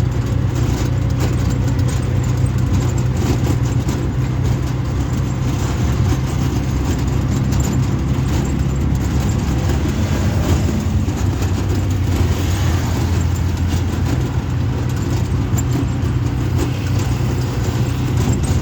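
Auto-rickshaw engine running steadily during a ride, a continuous low hum over road noise that shifts in pitch a little about halfway through.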